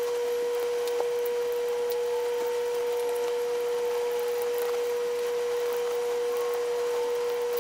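A steady hum at one pitch, unchanging and the loudest sound throughout, with a faint click about a second in.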